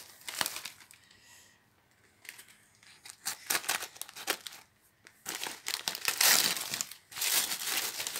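Paper plant sleeve rustling and crinkling as it is handled and pulled open, in irregular bursts. There is a quieter spell from about one to three seconds in, and the rustling is loudest in the last three seconds.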